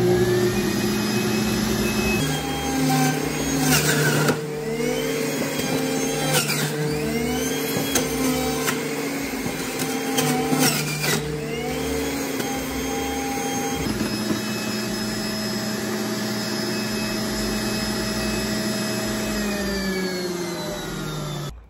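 Electric juicer motor running steadily as pieces of ginger are fed through, its pitch dipping under the load and recovering several times. It stops abruptly near the end.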